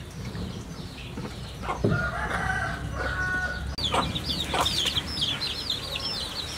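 Chickens calling: a drawn-out call about two seconds in, then a quick run of short, high chirps through the second half.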